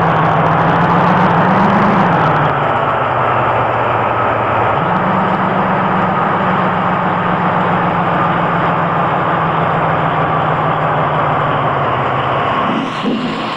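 A heavy vehicle's engine running steadily, its pitch rising briefly about a second and a half in and then falling back.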